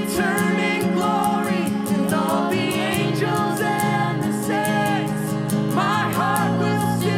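Worship band music: a sung melody over guitar and sustained low notes, with a steady beat.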